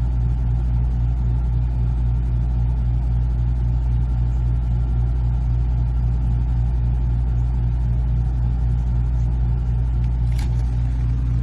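Steady low mechanical hum of a WEN 3600-watt generator running under the load of a 16,000 BTU air conditioner, the AC running with it and holding steady. A single short click about ten seconds in.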